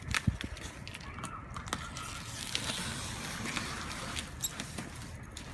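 Cardboard shipping box being handled: a few sharp knocks as it is shifted, then a stretch of scratchy scraping as a small cutter is run along the packing tape on top to open it.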